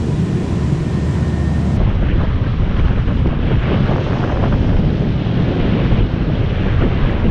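Strong wind buffeting the microphone, a loud steady low rumble, over choppy sea water below a fishing pier. The first two seconds hold instead the low rumble of a passing garbage truck.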